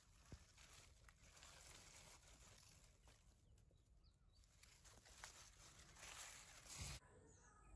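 Near silence: faint rustling of watermelon leaves as a hand brushes through them, with a soft thump near the end.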